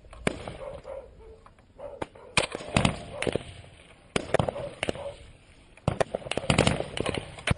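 Rifle gunfire in a firefight: a string of sharp shots in irregular bursts, some loud and close, others fainter and further off.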